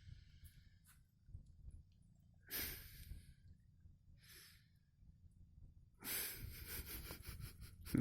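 Faint breathy puffs of air from a pet: one short puff about two and a half seconds in, a softer one a little later, then a longer run of quick sniffing puffs near the end.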